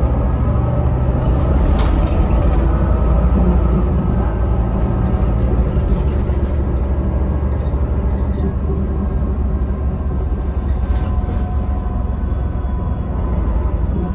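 Van Hool newA360 city bus heard from inside the cabin, its MAN D2866 straight-six diesel running steadily with a deep drone. A faint high whine slides down in pitch midway through.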